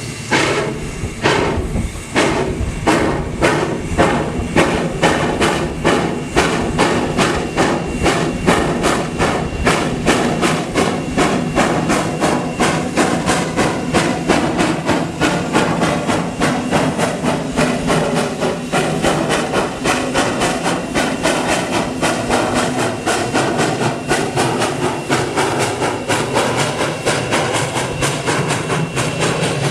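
Virginia & Truckee steam locomotive #29, a 2-8-0, working hard with sharp exhaust chuffs over a steady hiss of steam. The beats come about two a second at first and quicken as the engine picks up speed.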